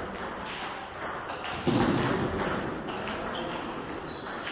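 Table tennis ball clicking off the table and the players' rackets in a rally, a series of short, sharp pings with a louder knock about two seconds in.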